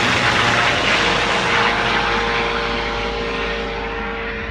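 Airbus EC135 twin-engine helicopter flying away after take-off: steady rotor and turbine noise with a whine, slowly fading.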